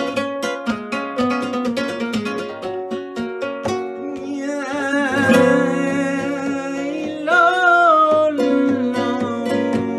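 Flamenco guitar playing alegrías, quickly picked notes for the first few seconds. From about four seconds in, a man's voice sings a bending, ornamented flamenco line over the guitar, ending in a long held note around eight seconds, before the guitar picking carries on alone.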